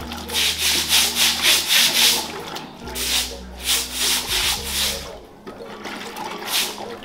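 Pieces of coconut being scrubbed and rubbed by hand in a plastic basket while being washed: a quick, rhythmic scraping about four strokes a second, pausing and picking up again more slowly, with a last stroke near the end. A steady low hum runs underneath.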